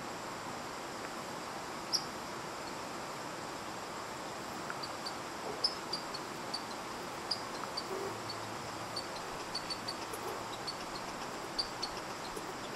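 Outdoor ambience: a steady hiss with many short, high chirps, one about two seconds in and then scattered irregularly and more often through the second half.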